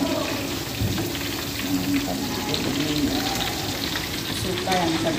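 Tofu pieces deep-frying in hot oil in an aluminium wok, a steady crackling sizzle.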